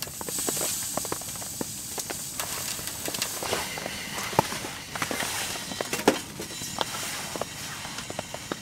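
Firewood crackling in a small wood-burning tent stove, with many scattered sharp cracks and pops over a steady hiss.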